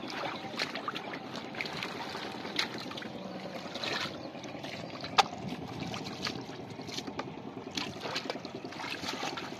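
Hands sloshing and splashing in shallow muddy water, with a steady trickle and many small clicks and splashes, one sharper click about five seconds in.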